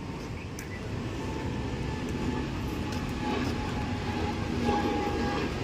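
Steady engine noise from vehicles, a low rumble with a faint hum over it, slowly growing louder.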